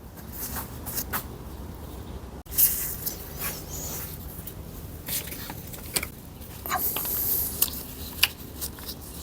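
Scattered light clicks, taps and scraping of metal gearbox parts being handled on a workbench, with a sharper knock about two and a half seconds in and a short stretch of scraping near the end.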